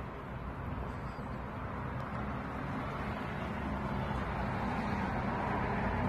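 Steady outdoor background noise: a low rumble and hiss with no distinct events.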